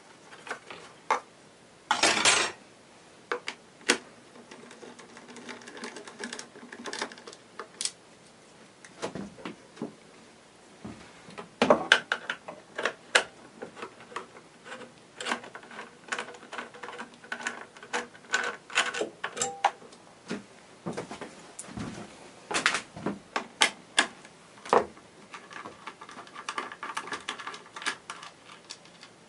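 Scattered clicks, knocks and plastic rattles of hands and a screwdriver working loose the plastic air box of a Predator 3500 generator, with a louder rattling knock about two seconds in and bursts of clicking near the middle and toward the end.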